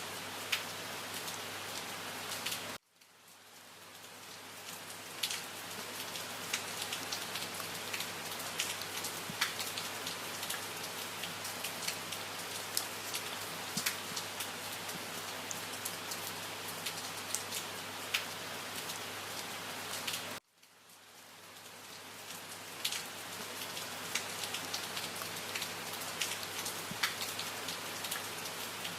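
Steady rain falling, with many individual drops ticking on a surface. It cuts out suddenly twice, about three seconds in and about twenty seconds in, and each time swells back up over a couple of seconds.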